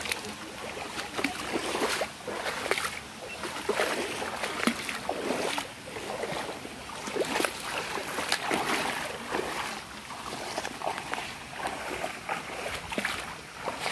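Footsteps wading through a shallow, stony stream, splashing and sloshing step after step at about one step a second.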